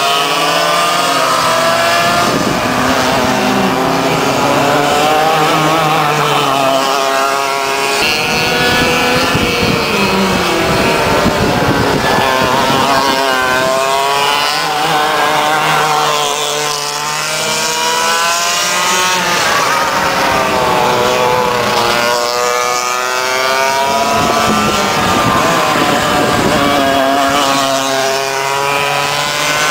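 Go-kart engines revving as the karts race around the track. Several engines overlap, their pitch repeatedly rising and falling.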